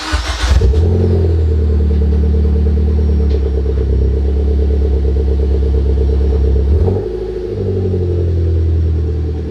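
Mitsubishi Lancer's four-cylinder engine starting: a short burst as it cranks and catches, then a steady idle that goes briefly quieter about seven seconds in.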